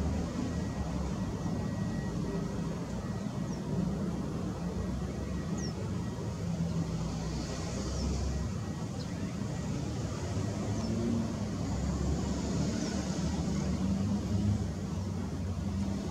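Airbus A321neo's Pratt & Whitney geared turbofan engines running at taxi power as the airliner turns to line up on the runway: a steady low rumble that swells and eases, with a few faint high chirps over it.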